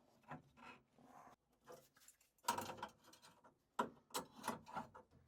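Scattered clicks and knocks of hand tools on metal fittings as the boiler's gas valve connection is refitted, a few sharper knocks in the second half.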